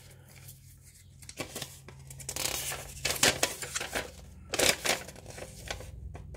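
Cardboard and paper rustling and tearing as a small puzzle box is opened and its paper insert pulled out. The rustling comes in bursts, loudest about two and a half to three and a half seconds in and again around four and a half seconds.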